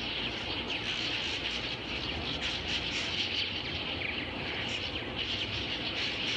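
Dense chorus of many birds calling at once: a continuous wash of overlapping chirps and squeaks with no pause.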